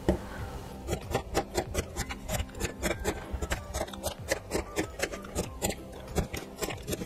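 Cleaver chopping a cucumber into thin slices on a plastic cutting board: a fast, even run of sharp knocks, about four a second, starting about a second in.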